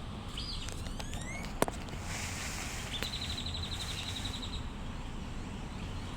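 Small birds chirping outdoors, with a fast, even trill lasting about a second and a half near the middle, over a steady low background rumble. A single sharp click comes about a second and a half in.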